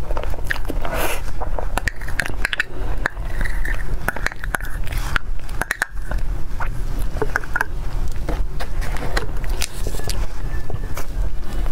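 Close-miked eating of a soft cream dessert, with wet mouth smacks and chewing clicks, and a metal knife scraping the inside of a small clear dessert cup.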